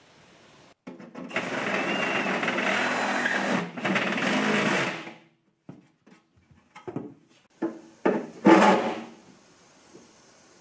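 Cordless drill with a step bit boring through the aluminum hull of a jon boat: about four seconds of steady drilling with a brief break partway. Then scattered knocks and handling clatter, one louder than the rest.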